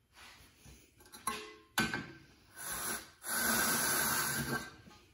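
Amcraft red V-groove tool cutting fiberglass duct board along a layout square: a few light knocks and rubs as it is set against the square, then about a second and a half of steady rasping hiss as the blades are pushed through the board.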